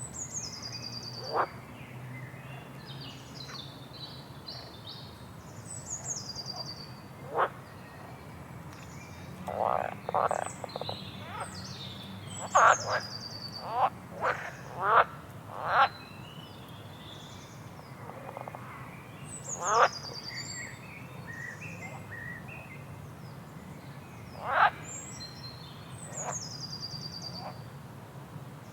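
Wild birds singing repeated high, falling phrases, with short, sharp animal calls (the loudest sounds) bunched about ten to sixteen seconds in, over the steady low rush of a waterfall.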